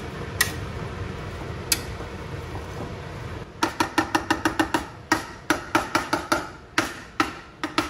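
A wire whisk scraping around a metal pot of thick mustard pickle mixture. About three and a half seconds in, a fast run of sharp metallic taps on the pot begins, several a second with a short ringing tone, as the whisk is knocked against it to shake off stuck chunks of squash.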